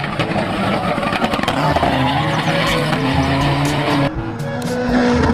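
Racing car sound effect of an engine running with tyres squealing, over background music.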